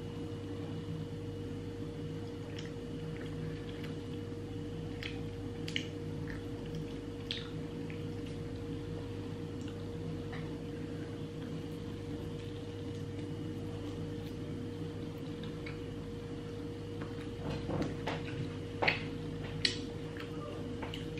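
Close-up eating sounds of chicken on the bone being pulled apart by hand and chewed: scattered small wet clicks and squishes, with a few louder sharp clicks near the end. A steady low hum runs underneath.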